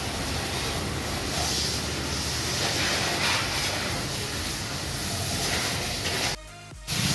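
Pressure washer spraying water over a motorcycle: a steady hiss of spray that cuts out briefly near the end.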